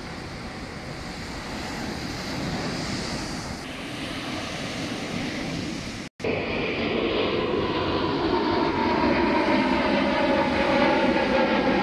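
Surf and wind haze, cutting out for a moment about six seconds in. After that an airplane's engines run with a steady stacked tone that grows louder as it passes low overhead.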